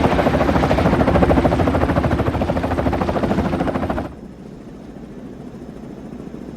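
Helicopter rotor chopping loudly, a fast, even pulsing over a dense rush of engine noise, which cuts off abruptly about four seconds in, leaving a quieter low rumble.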